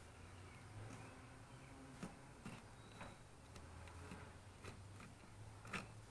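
Knife blade clicking and scraping against an alligator gar's hard, armour-like scales as the thick skin is cut away from the meat: faint, irregular ticks, with a steady low hum underneath.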